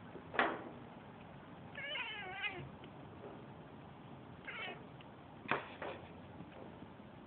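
Domestic cat making a series of short meows, about five, one of them a wavering trill-like call about two seconds in.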